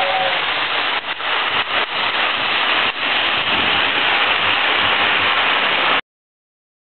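Lionel toy steam train running on three-rail tinplate track: a steady rushing, whirring noise, with the end of its two-note whistle just at the start. The noise dips briefly a few times and cuts off suddenly near the end.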